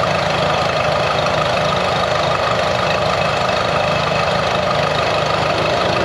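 Four-stroke outboard motor idling steadily at low speed, an even drone with no change in speed.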